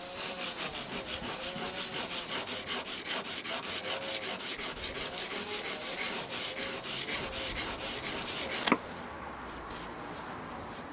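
A chisel being honed on an oil stone, rubbing back and forth in quick, even strokes, several a second. The strokes end near the end with a single sharp click.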